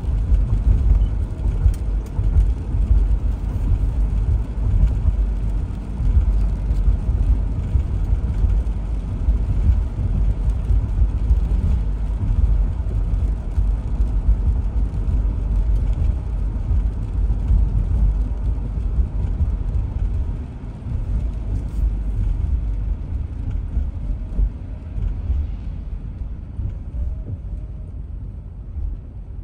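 Road noise of a car driving on wet pavement, heard from inside the moving car: a steady low rumble with tyre hiss. It gets quieter near the end as the car slows behind traffic.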